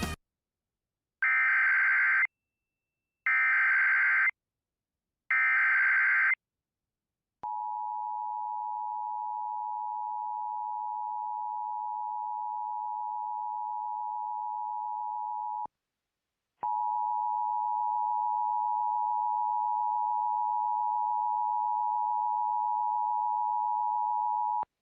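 Emergency Alert System tones opening a tornado warning: three one-second bursts of SAME header data, then the steady two-tone attention signal (853 and 960 Hz). The attention signal breaks off for about a second some 16 seconds in, then starts again slightly louder.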